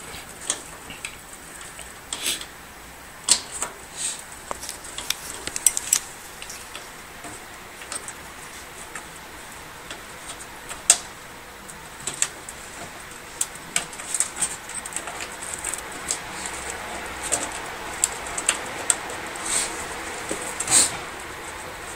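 Irregular sharp clicks and taps of plastic power-supply connectors and cables being handled and worked into place in a computer case.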